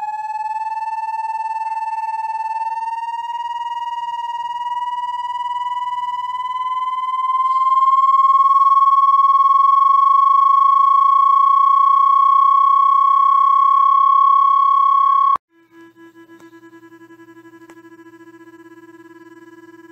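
Synthesized electronic tone played as a rodent-repelling sound: a loud, buzzy tone with overtones that glides slowly upward over the first eight seconds or so, then holds steady. About fifteen seconds in it cuts off suddenly and gives way to a much quieter, lower steady tone.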